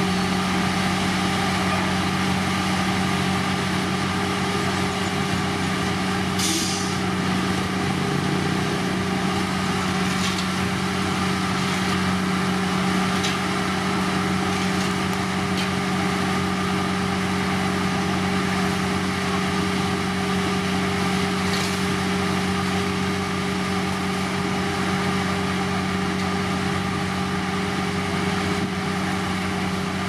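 Heavy diesel construction machinery running steadily at a constant engine speed, with a few brief hisses about six, ten and twenty-one seconds in.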